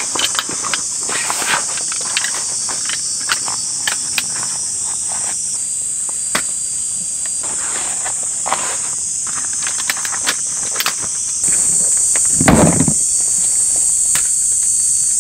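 Steady high-pitched insect chorus, with scattered clicks and knocks from a folding camp table's pole frame being pulled from its stuff sack and snapped together. A louder rustling thump about twelve seconds in.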